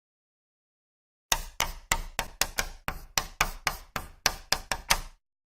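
Chalk striking a blackboard in a quick run of about fifteen sharp taps, about four a second, starting a little over a second in and stopping shortly before the end.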